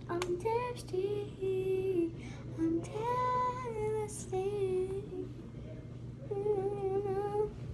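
A girl singing softly to herself with no accompaniment, a string of held, wavering notes.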